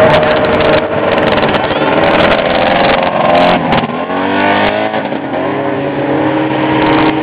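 Several vintage two-stroke snowmobile engines running together at a trail stop. A little past halfway one rises in pitch as it revs up, and the mix drops back just after.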